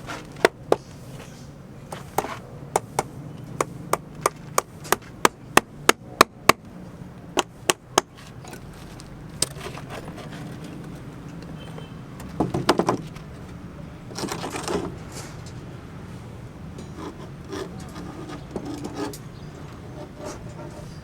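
A run of sharp hammer blows on wood, about two a second for the first eight seconds. A quick flurry of knocks and a scrape follow later.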